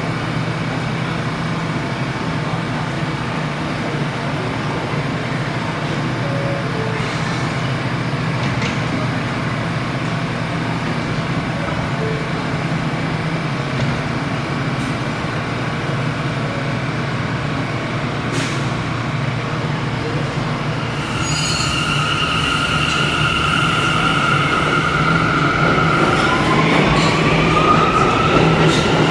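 An NYC subway R179 train standing at the platform with a steady low hum. About two-thirds of the way through, the electric traction motors start with a steady whine, which rises in pitch near the end as the train accelerates away.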